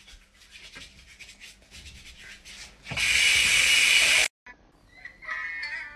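Rhythmic rubbing strokes, several a second, then a bathroom sink's mixer tap running hard into a ceramic basin for just over a second before it stops abruptly.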